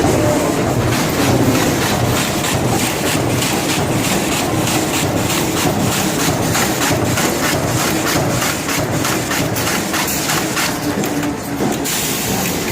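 Industrial machine running with a steady mechanical noise and a regular clacking of about three strokes a second.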